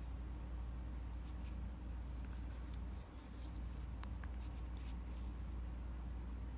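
Faint scratching, rubbing and light clicks of hands handling a small phone and its packaging, over a steady low hum.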